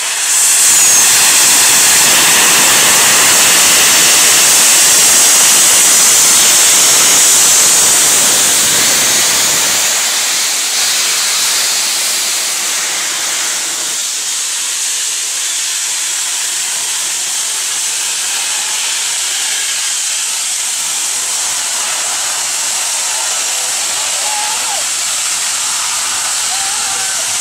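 Steam locomotive 34046 Braunton, a rebuilt Bulleid West Country class Pacific, blowing off steam at its safety valve: a loud, steady hiss of escaping steam, the sign of the boiler at full working pressure. It starts at the outset, eases about ten seconds in and carries on a little more quietly.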